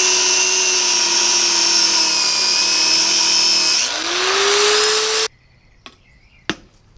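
Angle grinder with a cut-off disc running under load, cutting through the old wheel-bearing race left on a steel wheel hub: a loud, steady whine whose pitch dips about four seconds in and then climbs back up as the disc frees. It stops suddenly about five seconds in, and a single sharp knock follows.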